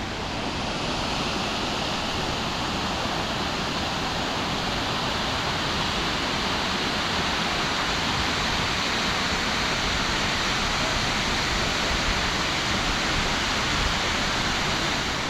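Steady, even rush of a waterfall: falling water cascading without a break.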